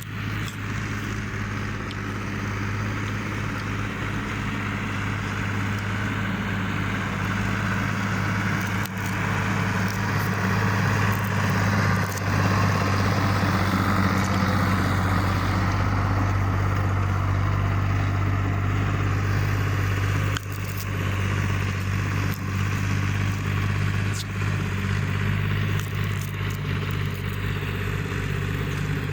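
Fiat 480 tractor's diesel engine running steadily. It gets somewhat louder about ten seconds in and dips briefly about twenty seconds in.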